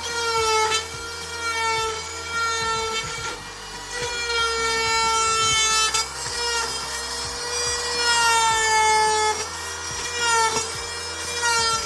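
A power tool cutting wooden trim, with a steady high-pitched whine that sags briefly in pitch a few times as it cuts.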